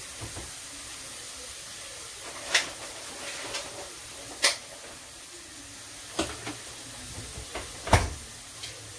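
Eggs and feta frying in a pan on a gas stove, a steady faint sizzle, with several sharp knocks and clicks of kitchen things being handled, the loudest near the end.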